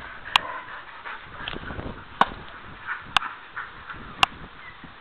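A kelpie dog making small sounds, with four sharp clicks about a second apart.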